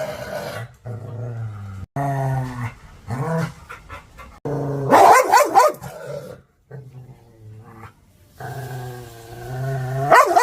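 Angry dog growling steadily, broken by three bursts of aggressive barking.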